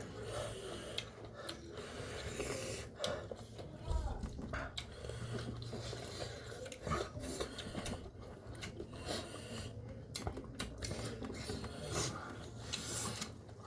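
Eating sounds: chewing and mouth noises with scattered light clicks of cutlery against dishes.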